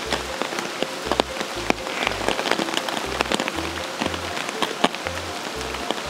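Rain falling steadily, with many sharp drops landing close by, over background music with a low bass note about twice a second.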